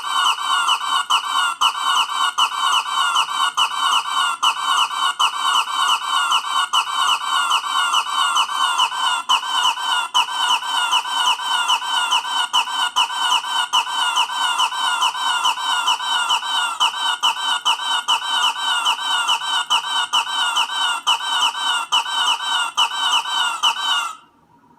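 Cartoon mailbox character's comic sound effect: short falling chirps in a rapid, even repeat that cuts off suddenly near the end.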